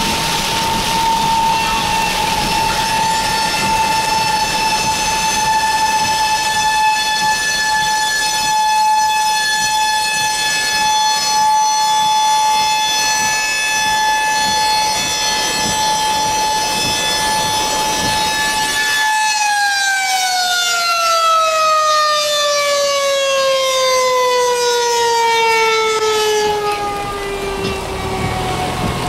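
Federal Signal 2001-SRNB outdoor warning siren sounding a steady, high-pitched tone with strong overtones. About two-thirds of the way in, its pitch starts a long, even fall as the siren winds down after shutting off. Heard from inside a car in heavy rain.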